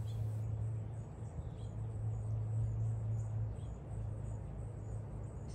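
Outdoor garden ambience: a steady low hum with faint high-pitched chirps repeating over it.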